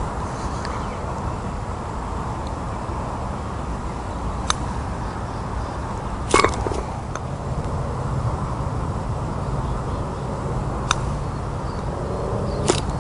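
Putter face clicking against a golf ball about four and a half seconds in, then a louder knock with a short ring as the ball drops into the cup; further putter clicks come later, over a steady low outdoor rumble.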